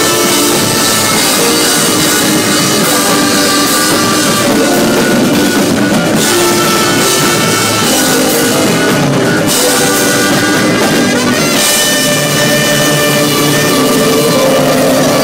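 Live rock band playing loudly, with a drum kit driving the music.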